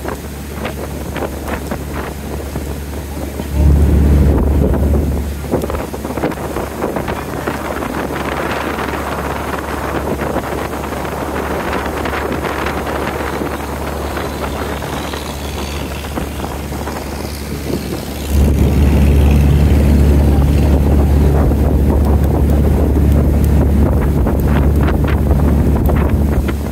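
A boat's engine running steadily under way, a low hum that grows louder for a moment about four seconds in and again from about two-thirds of the way through, mixed with wind buffeting the microphone and the rush of water along the hull.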